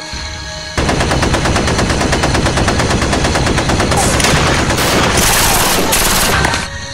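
Dubbed sound effect of sustained automatic gunfire: a rapid, even rattle of shots that starts about a second in and stops shortly before the end, with a loud hiss layered over it partway through.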